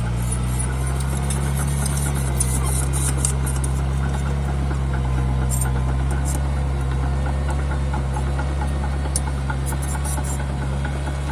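Mini bulldozer's diesel engine running at a steady speed, with scattered faint metallic clinks over it.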